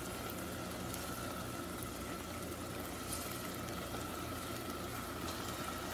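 A steady mechanical hum with a thin constant whine, over faint sizzling from a pan of onion-tomato masala as diced carrots, beans and potatoes are tipped in, with a few soft ticks.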